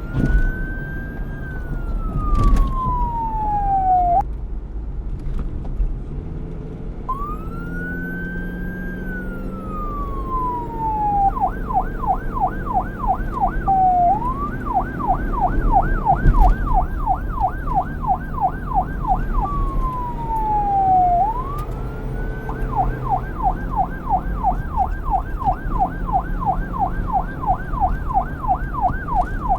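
Police car electronic siren switching between a slow wail (rising then falling over about four seconds) and a fast yelp of about three to four sweeps a second, with a short break after the first wail. A low rumble runs underneath.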